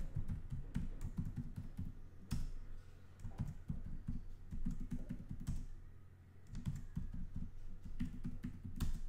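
Typing on a computer keyboard: three quick runs of keystrokes with short pauses between them, and a sharper key press about two seconds in and another near the end.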